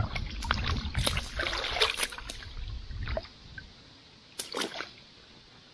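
River water sloshing and splashing around a wader's body and hands as they work at the surface, with sharp splashes and drips. A low rumble dies away about three seconds in, leaving a quieter stretch with a couple of short splashes near the end.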